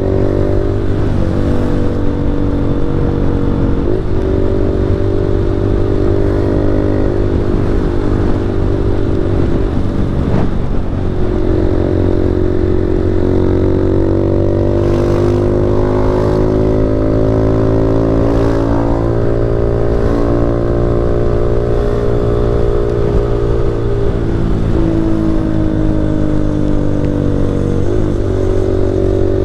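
Single-cylinder 160 cc motorcycle engine running while riding, its pitch rising and falling with the throttle. The pitch breaks briefly several times.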